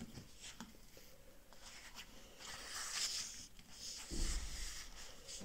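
Paper rustling and sliding as a paperback art book is opened and its pages leafed through. A dull thump of the book being handled comes about four seconds in.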